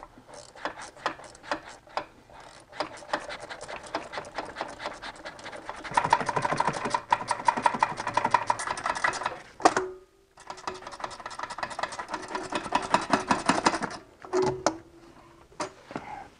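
A 10 mm ratcheting wrench clicking as a bolt is backed out. The clicks come in short scattered runs at first, then as fast continuous clicking for several seconds. The clicking stops briefly about ten seconds in, then resumes.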